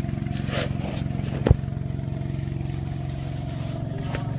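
Small engine-driven water pump running steadily with a fast even pulse, drawing water up out of the well through its suction hose. A single sharp knock about a second and a half in.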